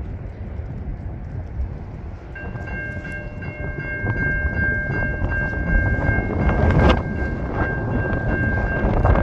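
Diesel locomotive air horn sounding a long, steady chord that starts about two seconds in and holds, over wind on the microphone and a low rumble that grows louder as the train approaches.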